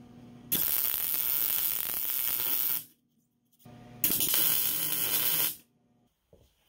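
MIG welder laying two short welds on a steel bracket of a tube frame: two bursts of steady crackling hiss, each about two seconds long, starting and stopping abruptly, with a low electrical hum in between.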